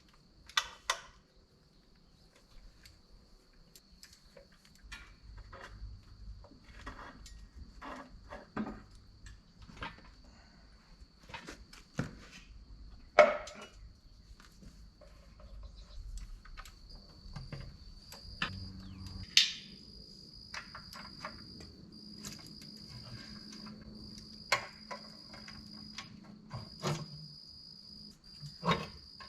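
Scattered clicks, knocks and clanks of hand tools on metal as the oil pan of a Cummins C160 diesel engine is unbolted, the sharpest knocks about 13 and 19 seconds in. A steady high-pitched insect trill runs underneath and turns pulsing about halfway through.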